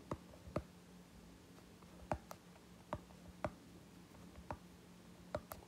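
Stylus tip clicking and tapping on a tablet's glass screen while handwriting, about ten light, irregular clicks over a faint steady low hum.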